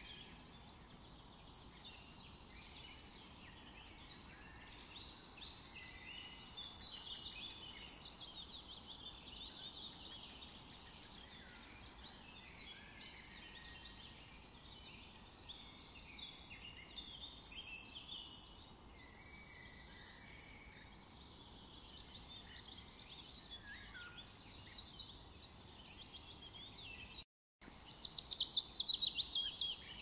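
Forest ambience of many small birds singing and chirping together over a faint steady hiss. Near the end the sound cuts out for a moment, then comes back with a louder run of quick chirps.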